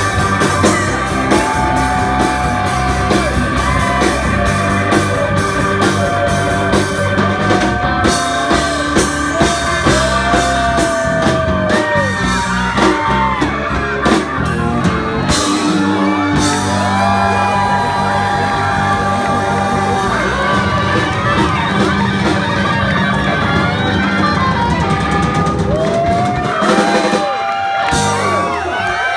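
Live blues-rock band jamming: electric guitar lines with held and bent notes over drums and bass.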